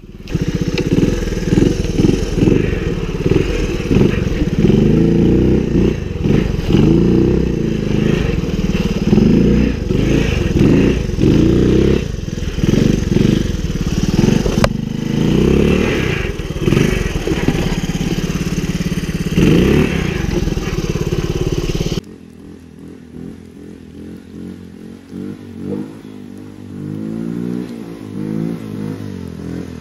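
Honda ATC110 three-wheeler's small single-cylinder four-stroke engine running under throttle while being ridden, revving up and down. About 22 seconds in it drops abruptly to a quieter, more distant engine sound that keeps rising and falling in pitch.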